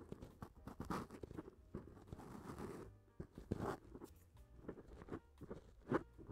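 Close-miked ASMR trigger sounds: irregular scratching, crinkling and light tapping on or around the microphone as if working at an ear, with a hissy rustle about two seconds in, over faint background music.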